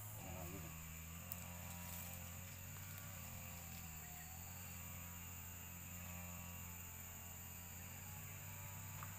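A steady low hum with a faint, steady high-pitched whine above it, and a single faint tick about a second in.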